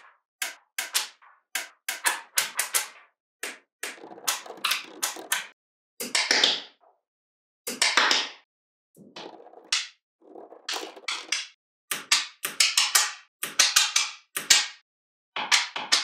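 Small magnetic balls clicking and snapping together in quick runs of sharp clicks, with short gaps between runs and now and then a longer clatter.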